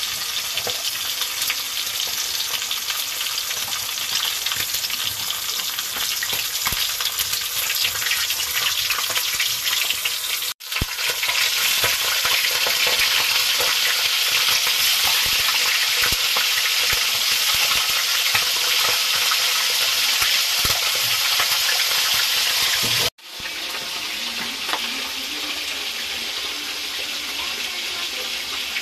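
Fish pieces frying in hot oil in a steel wok, a steady crackling sizzle. The sound cuts off abruptly twice and picks up again, loudest in the middle stretch.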